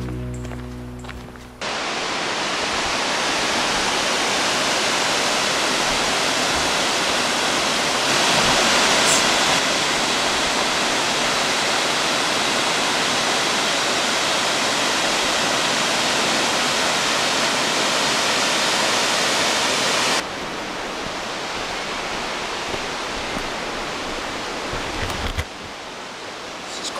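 Proxy Falls waterfall: a steady, even rush of falling water, which starts abruptly as a song ends in the first couple of seconds. About twenty seconds in it drops suddenly to a quieter rush of water, and quieter again near the end.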